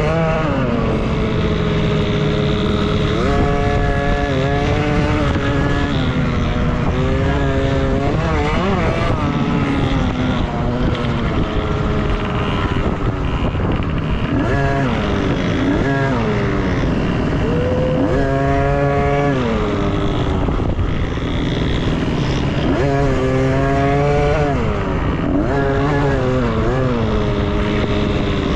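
Dirt bike engines revving through their gears during an off-road race. The pitch climbs and drops back every second or two, and at times two bikes are heard at once.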